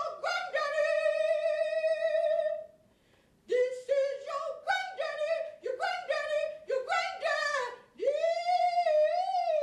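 A solo voice singing unaccompanied in a high register. Its long held notes waver widely, and it breaks off briefly about three seconds in.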